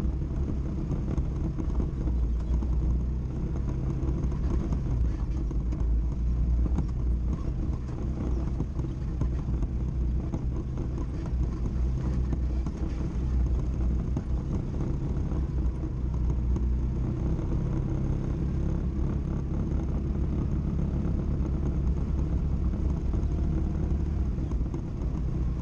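ATV engine running at low speed as the quad crawls over a rocky, washed-out trail, its steady low drone rising and falling slightly with the throttle.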